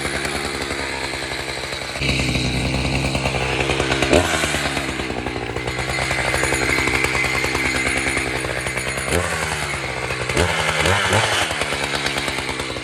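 Two-stroke chainsaw running steadily while cutting spruce, its engine note shifting as the load changes; from about nine seconds in, the revs rise and fall several times in quick succession.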